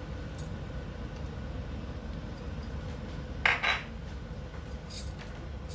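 Kitchen utensil knocking against a pan: a quick double clatter about three and a half seconds in, with a few lighter clicks, over a steady low hum.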